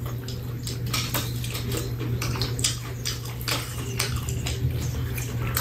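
Eating sounds: crispy fried chicken being pulled apart by hand and chewed, making a run of irregular crackles and clicks. A steady low hum runs underneath.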